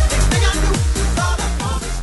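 Background music with a steady, fast kick-drum beat.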